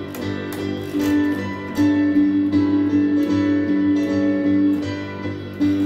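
Bass guitar playing a slow melodic line of held notes over a piano accompaniment.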